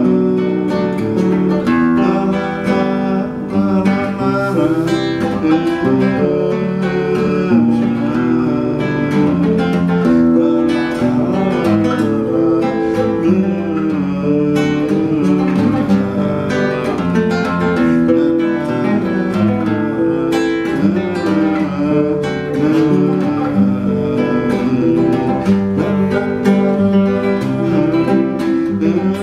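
Nylon-string classical guitar played as a rhythmic hymn accompaniment: strummed chords with bass notes moving along with the chords, without a break.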